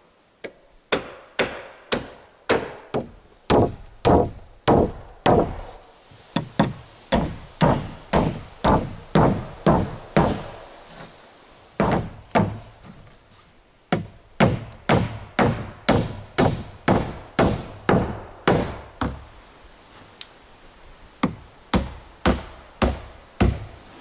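Hammer driving nails into wooden planks: sharp blows at about two to three a second, in runs broken by short pauses.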